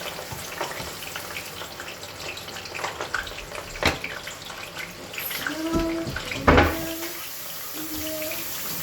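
Sliced onion sizzling and crackling in hot groundnut oil in a cooking pot, with two knocks, the second and louder one about six and a half seconds in.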